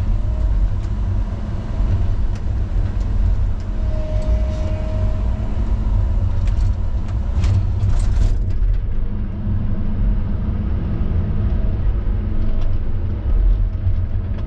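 Heavy diesel engine of logging equipment running steadily with a deep, even rumble. A brief steady squeal comes about four seconds in, and a few sharp clicks around seven to eight seconds.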